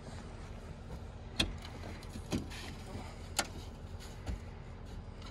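A few sharp clicks and knocks, about a second apart, over a steady low hum: the cab door latch and boots on the steps as someone opens the door and climbs into a tractor cab.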